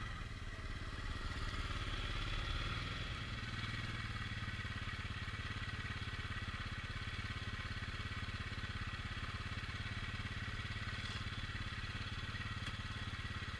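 Four-wheel ATV engine running at a steady idle, with an even rapid pulse. It is a little louder in the first few seconds, then settles.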